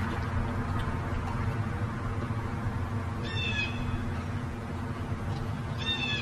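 Two short, high animal calls, each falling slightly in pitch, about three seconds apart, over a steady low background hum.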